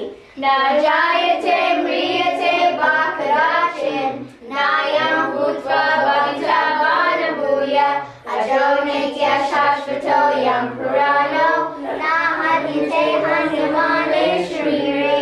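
A group of children singing a devotional song together in unison, in phrases about four seconds long with short breaks for breath.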